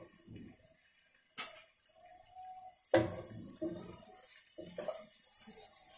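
Spatula stirring and scraping potatoes and onions around a nonstick frying pan, working in the just-added coriander powder and garam masala. One sharp knock about a second and a half in, then irregular clicking and scraping strokes from about three seconds in.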